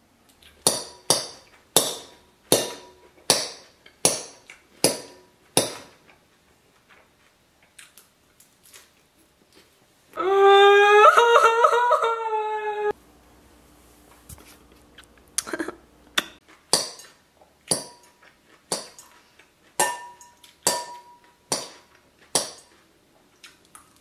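Metal fork striking and scraping the inside of a glass salad bowl while stirring, each sharp clink ringing briefly at the bowl's pitch, about two a second. It comes in a run over the first six seconds and again in the second half. In the middle there is a loud held note whose pitch wavers.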